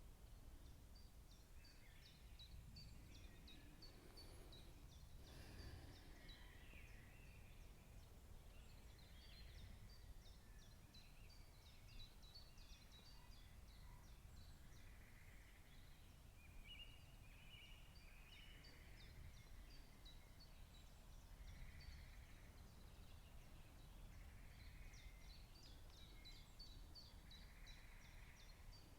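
Faint birdsong: many short, high chirps and trills scattered throughout, over a low steady rumble.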